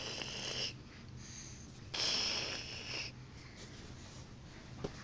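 Two breathy puffs of air, the first brief, the second about two seconds in, longer and louder.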